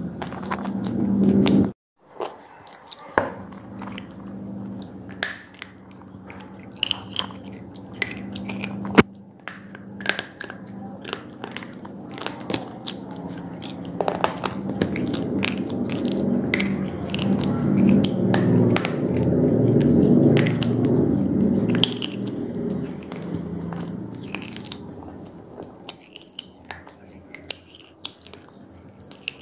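Close-up chewing and biting of square pieces of slate: many sharp, crisp cracks as the stone breaks between the teeth, over a steady low chewing sound. The sound cuts out briefly about two seconds in.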